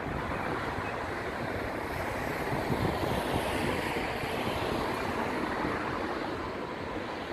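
A steady rushing noise that swells a little around the middle and then eases off.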